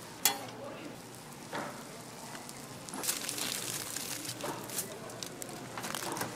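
Aluminium foil crinkling and rustling as a toast sandwich is folded and wrapped in it, thickening into dense crackling from about three seconds in. A sharp click comes near the start.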